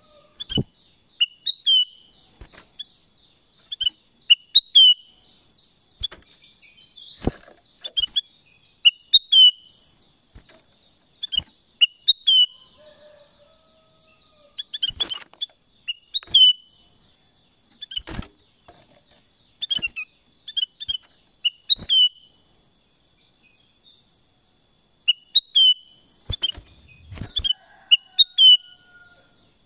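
Black-crested bulbul (kutilang emas) calling: short, bright chirping phrases of two to five quick notes, repeated every second or two, with a pause of about three seconds near the end. A few sharp knocks fall in between, over a faint steady high tone.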